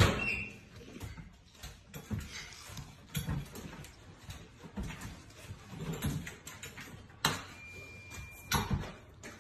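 A dog pawing and nosing at things in a kitchen sink: irregular knocks and clattering, with a sharp knock near the start and a brief high squeak about eight seconds in.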